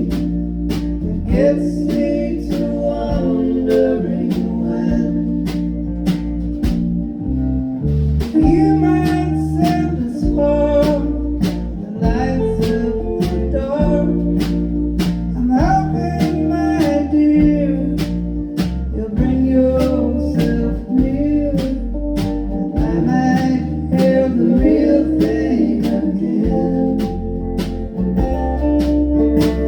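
Live band performance of a song: singing over guitar, with a steady beat.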